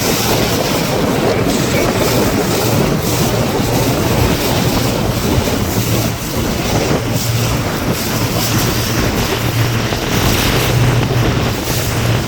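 Honda 60 hp four-stroke outboard motor running steadily under way, a continuous low drone, mixed with rushing water and wind buffeting the microphone.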